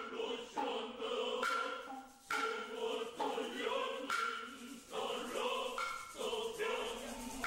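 Noh chorus of male voices chanting utai in unison, held lines that break and restart every second or so. A couple of sharp tsuzumi hand-drum strikes cut through, about a second and a half in and again about four seconds in.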